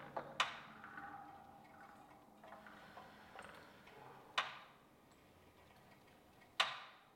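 Pilates Allegro reformer giving three sharp clacks, each with a short ringing fade, as the leg in the foot strap rises and lowers and the strap-loaded spring mechanism shifts. The last clack is the loudest.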